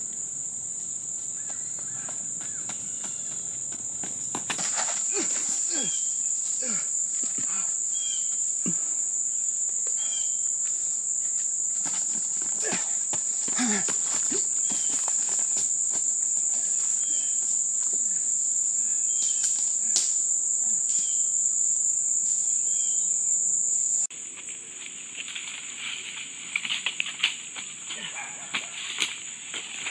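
Steady high-pitched drone of an insect chorus in summer woodland, with scattered short knocks and rustles. It steps up in level a few seconds in and drops abruptly in the last quarter.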